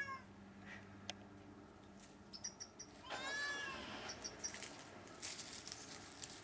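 Domestic cat stuck up a tree giving one long, drawn-out meow about three seconds in, a distress call. Short high bird chirps come just before and after it.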